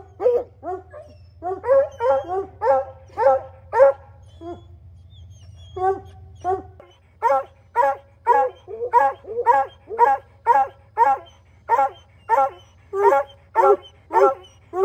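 Hunting hounds in a dog box on a pickup bed barking over and over, about two barks a second, with a short break about four seconds in.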